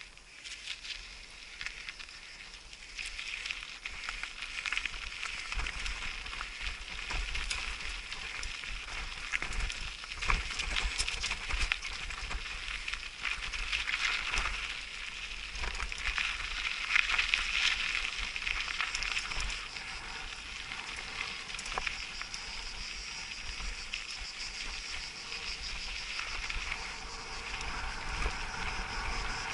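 Mountain bike riding over a loose-gravel dirt track: the tyres crunch on stones and the bike rattles with many small clicks, over a low rumble.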